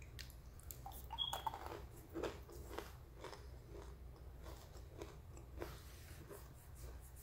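Chewing a dry, crunchy chunk of pink red kaolin clay: a run of faint, irregular crunches.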